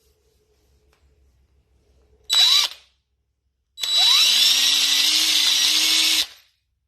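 Handheld electric drill spinning a small buffing wheel, buffing the top of a briar tobacco pipe. There is a short half-second burst about two seconds in, then a steady run of about two and a half seconds with a high whine, which stops near the end.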